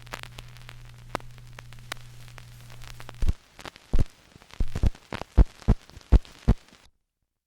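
Surface noise of a 78 rpm shellac record: hiss and crackle over a steady low hum. About three seconds in, the hum drops out and a run of loud, low thumps follows, roughly two a second, before the sound cuts off to silence.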